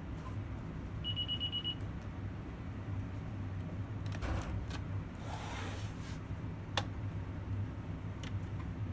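A loose laptop LCD panel being handled: a scraping rustle in the middle, then a sharp tap and a few light clicks as the panel is tipped out of the lid onto the keyboard. A short, rapidly pulsed electronic beep sounds about a second in, over a steady low hum.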